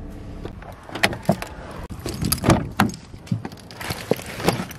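A bunch of car keys jangling and clicking in a hand, with irregular knocks of handling from about a second in.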